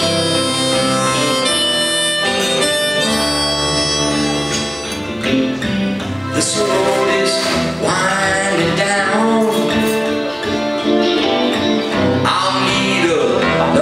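Live band music: a harmonica plays held chords and then bent notes over strummed acoustic guitar and keyboard.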